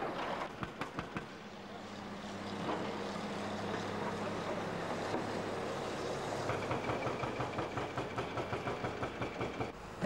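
Bulldozer running, its diesel engine droning steadily, with several sharp knocks in the first second. About two-thirds of the way through, a rapid rhythmic clanking starts, about four beats a second, over a steady high whine.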